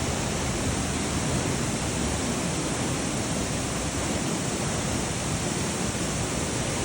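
Waterfall inside Smoo Cave: a steady, loud rush of falling water with no breaks.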